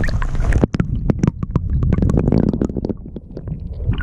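River water heard through a submerged action camera: muffled gurgling and rumbling with many scattered sharp clicks. The open-air rush of wind and water cuts off about half a second in and comes back near the end as the camera breaks the surface.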